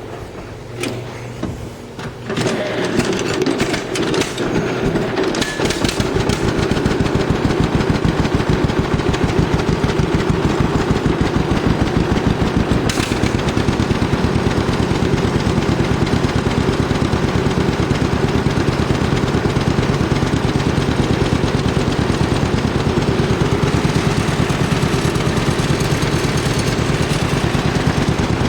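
1948 John Deere A's two-cylinder engine starting, catching about two seconds in, then running with a steady, rapid firing beat.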